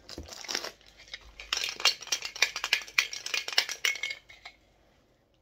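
A Funko Soda collectible can being handled and tipped open, with a quick run of rattling and clinking clicks as its contents knock about inside. The clicks stop about four and a half seconds in.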